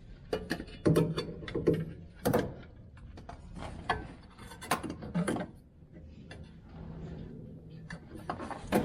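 Irregular metallic clicks and knocks as a replacement starter motor is handled and worked up into position under a pickup truck.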